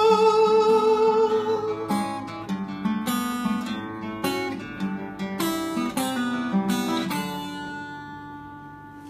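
Acoustic guitar playing a closing passage of picked notes and strums, ending on a final chord that rings and slowly fades away.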